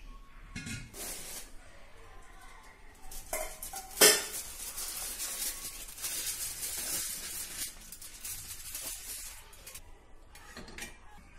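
A sharp metal clank about four seconds in as the steel lid comes off a biryani pot, then aluminium foil crinkling and rustling for several seconds as the foil seal of the dum pot is peeled back by hand. A few lighter knocks of pot handling come before.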